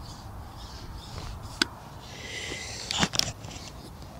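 Fishing pole being handled while a fish is played: a single sharp click about a second and a half in, a short scrape, then a quick cluster of knocks about three seconds in, over a low steady rumble.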